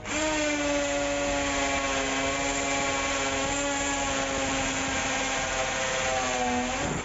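Huijia Pro-21321 brushless cordless drill in hammer mode, driving a 6 mm masonry bit into a concrete paving block: a steady motor whine that sags slightly in pitch near the end and then cuts out briefly. The drill is running on a battery that was not charged before use.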